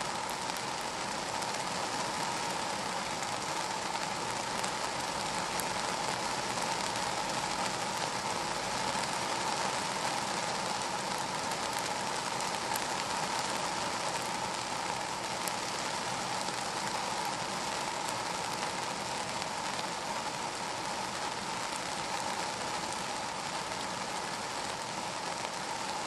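Steady rain falling on a car's roof and glass, heard from inside the cabin as an even hiss with an occasional single drop ticking.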